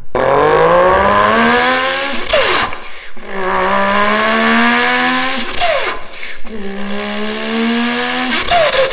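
A man's voice imitating a turbocharged inline-six engine, buzzed through a paper towel roll held to his mouth. There are three revs, each climbing in pitch, and each ends in a quick falling squeal and a short hiss.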